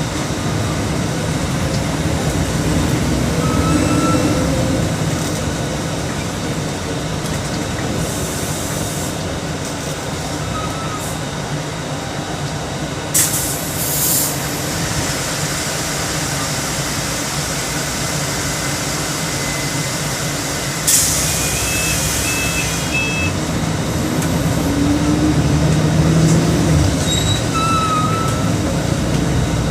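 Mercedes-Benz OM 457 LA 354 hp turbocharged inline-six diesel of an articulated city bus running under way, its note swelling as it pulls away and easing back. Two sudden sharp hisses of compressed air from the bus's air system cut in about 13 and 21 seconds in.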